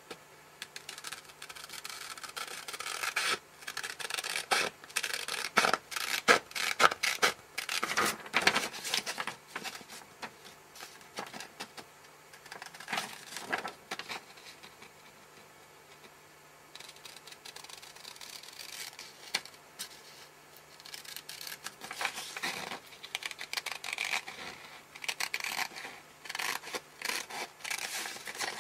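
Scissors cutting through paper in irregular snips, with paper rustling and rubbing as the sheet is turned and handled. There is a quieter stretch about halfway through.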